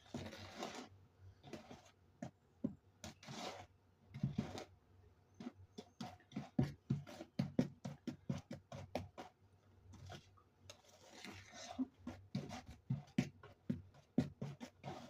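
Wooden spoon stirring brownie batter in a mixing bowl: irregular scrapes and light knocks against the bowl, with a run of quicker, even strokes in the middle.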